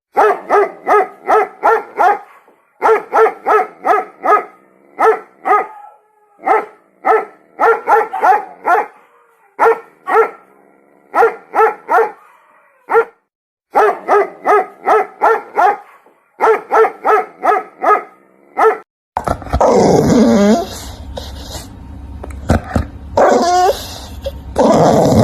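A dog barking in quick runs of four to six sharp barks with short pauses between. About three-quarters of the way through it switches to a noisier recording of a dog growling and snarling in long drawn-out sounds.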